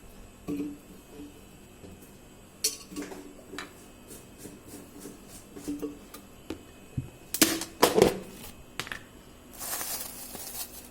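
Kitchen clatter as potato halves go into a metal pressure cooker: scattered clicks and knocks, with a few louder knocks about seven to eight seconds in.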